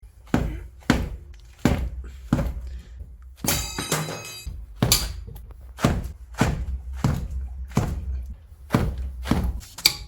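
Repeated heavy blows on a tool on a seized, overtightened wheel lug bolt, about a dozen strikes spaced well under a second apart. One blow about three and a half seconds in gives a ringing metallic clang.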